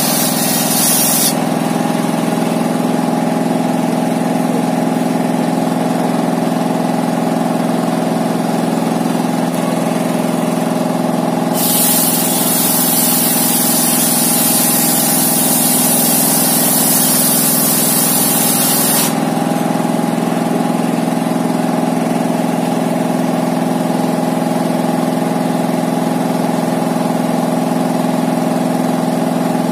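Single-cylinder 'dompeng' diesel engine running steadily, belt-driving a homemade circular saw table. The spinning blade finishes ripping through a board in the first second or so and cuts another board from about 12 to 19 seconds, a loud high hiss over the engine note.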